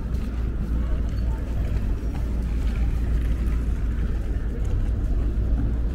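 Busy street ambience: a steady low rumble of city traffic, with faint crowd voices mixed in.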